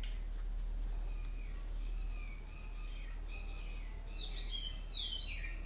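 Small birds chirping, with a run of quick falling notes near the end, over a steady low hum.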